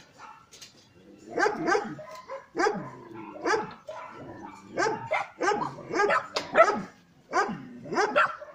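Dogs barking and yipping, a run of about a dozen short barks starting about a second in.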